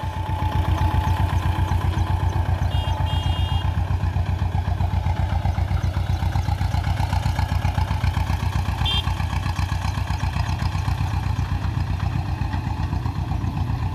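T-25 tractor's two-cylinder air-cooled diesel running steadily under load with a fast, even beat as it pulls a harrow across a field.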